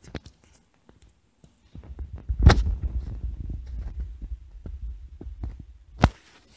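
Handling noise from the handheld tablet's microphone as it is moved: a low rumbling with scattered small clicks, a loud knock about two and a half seconds in and another near the end.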